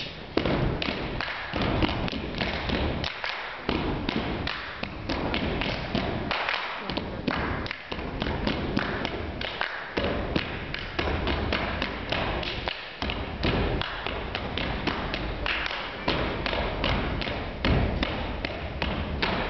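A troupe's body-percussion routine: rapid rhythmic thuds and taps of feet stamping on a wooden stage floor and hands striking, in a fast run broken by a few short pauses.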